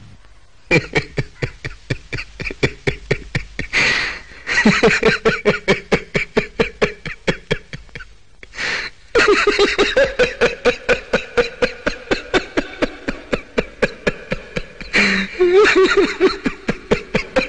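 A man laughing loudly and without stopping, in rapid, even 'ha-ha-ha' pulses, about three or four a second. It is broken a few times by sharp gasping in-breaths.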